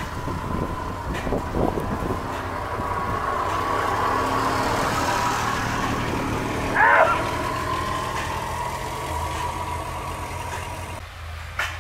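An engine running steadily at idle, with a steady whine over it and a short wavering squeal about seven seconds in.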